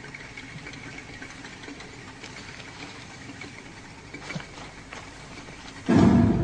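Low, steady droning from an orchestral horror film score. Near the end comes a sudden loud low drum hit that rings out slowly.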